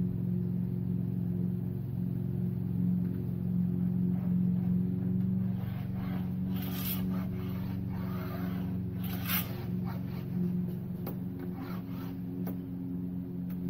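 A wheel glass cutter scoring a pane of window glass along a straightedge: scratchy rasping strokes, the two longest about six and nine seconds in, then several short scratches. A steady low hum runs underneath.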